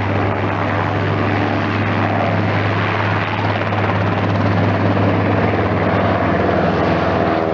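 Propeller airplane's piston engine running loud and steady close by: a continuous low drone with an even stack of tones.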